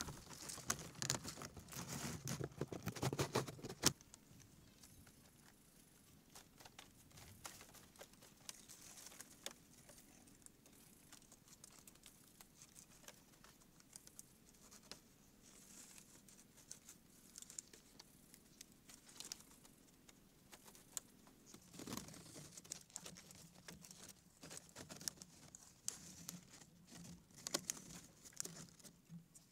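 Irregular rustling and crinkling of long green leaves, with small clicks and taps from the bamboo frame, as the leaves are handled and fitted against bamboo poles by hand. It is busiest in the first few seconds, ending in a sharp click about four seconds in, then quieter until it picks up again near the end.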